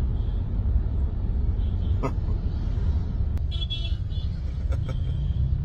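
Steady low rumble of a moving car heard from inside the cabin, with a few faint short sounds on top about two and four seconds in.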